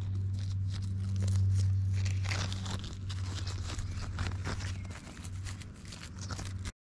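Rustling and crackling as plastic toy horse figurines are moved over moss and stone, with many small clicks over a steady low hum. The sound cuts out for a moment near the end.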